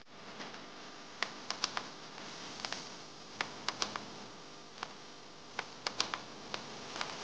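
Sharp, irregular clicks and taps of small parts being handled in the fingers: a small DC motor, a plastic rocker switch and a plastic tube. A steady hiss lies underneath.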